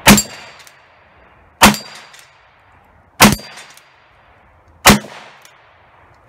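Four evenly paced revolver shots about a second and a half apart, with a fifth right at the end, from a Ruger Blackhawk .357 Magnum single-action revolver firing .38 Special loads. Each shot is followed by a short metallic ring of steel plate targets being hit.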